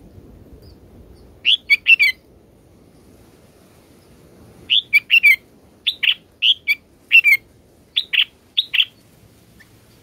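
Red-whiskered bulbul chirping in short, sharp notes: three quick ones about a second and a half in, then a run of about ten from around the middle to near the end.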